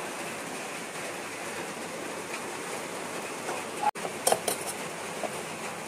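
Steady background hiss. About four seconds in, a spoon clinks against a bowl a few times as batter is stirred.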